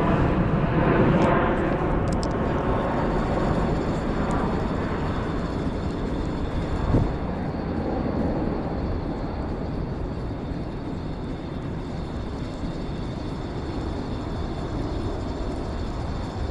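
A passing airplane rushing overhead, loudest at first and slowly fading away, with a single sharp knock about seven seconds in.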